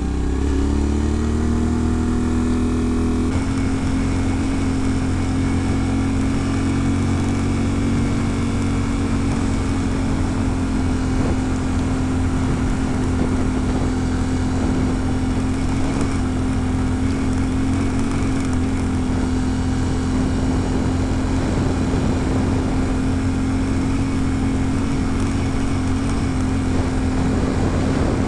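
Yamaha Ténéré 700's parallel-twin engine running under load as the motorcycle climbs a dirt road. The engine note rises over the first few seconds, then holds steady over a constant rush of wind noise.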